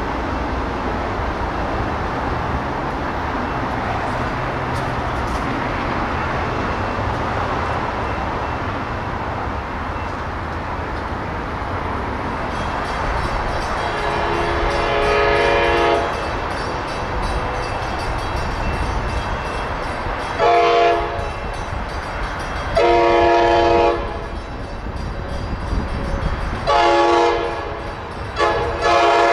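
Passenger train rumbling along the rails, then an approaching Amtrak Pacific Surfliner sounds its horn: a long blast, a short one, another long blast, and two shorter blasts near the end.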